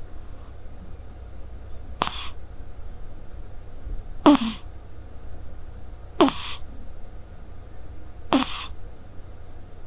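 Scottish Straight cat snoring in its sleep: four short snoring breaths about two seconds apart, each with a brief falling low tone.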